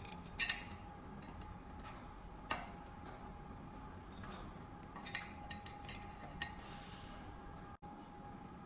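Scattered light clicks and taps of small metal parts: a double click about half a second in, a few single ones, and a short cluster in the middle, as a hanger is fitted and screwed onto a medical trolley. Under them runs a faint steady high hum.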